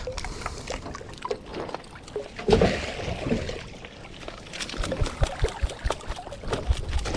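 Wet, muddy crab pot being handled over the water: water running and splashing off the mesh, with a louder burst about two and a half seconds in and a run of rattles and knocks from the frame and mesh near the end.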